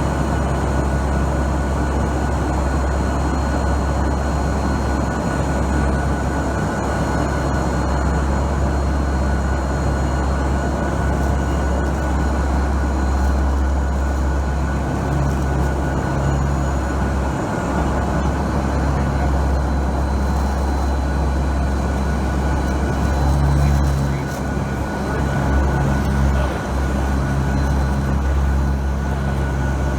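Steady drone of a NOAA P-3 Orion hurricane hunter's four turboprop engines inside the cabin: a deep hum with a thin steady whine above it, wavering briefly about three-quarters of the way through.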